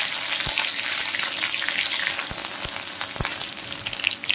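Hot oil sizzling and crackling in a kadai as a tempering of bay leaf, dried red chillies, cumin and crushed ginger fries, with a few soft low thumps. The sizzle dies down near the end.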